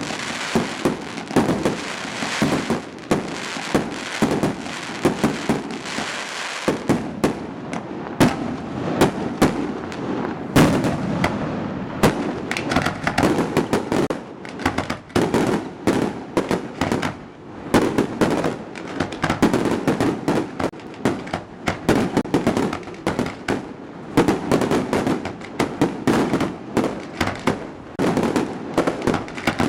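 Aerial fireworks going off: a dense, rapid run of bangs and crackling, many bursts overlapping one another.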